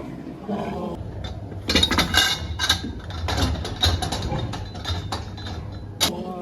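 Irregular metallic clanking and clattering over a steady low hum.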